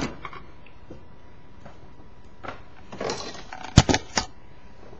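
A few sharp clicks and knocks, most of them bunched together near the end, with a short rustle just before them.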